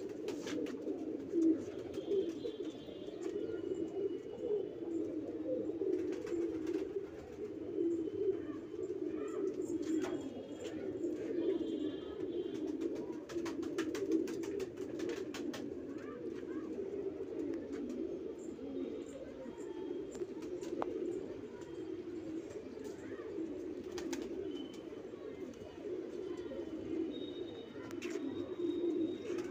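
Domestic pigeons cooing, a continuous low murmur of overlapping coos.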